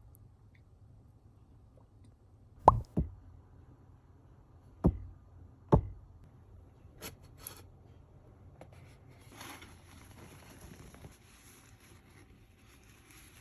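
Sharp knocks: two in quick succession, then two more about two and three seconds later, followed by a few faint clicks and a soft rustle.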